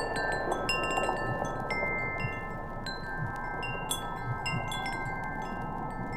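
Chimes ringing: many small, high, bell-like strikes at irregular moments, each note ringing on and overlapping the others, over a steady low rushing hiss.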